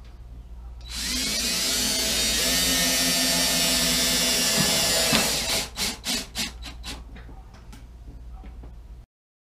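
Cordless drill driving a self-drilling sheet metal screw into a galvanized sheet-steel cone: the motor runs steadily for about four seconds as the screw tip cuts through the metal. It is followed by a quick run of sharp clicks.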